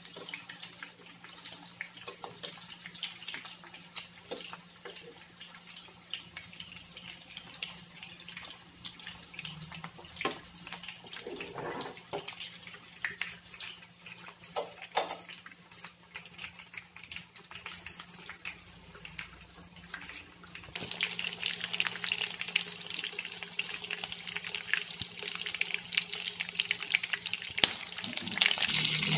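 Breaded chicken pieces frying in hot oil in a nonstick pan, a steady sizzle full of small crackles and occasional sharper pops. The sizzle grows louder about two-thirds of the way through.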